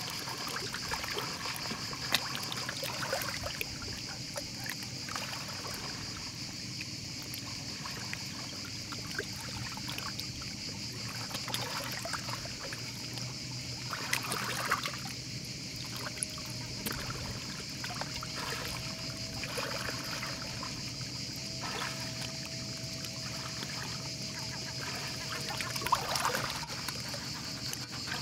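Shallow sea water lapping and trickling around a dog wading over a pebbly shore, with a few louder splashes, the clearest about halfway through and near the end. A steady high hiss runs under it throughout.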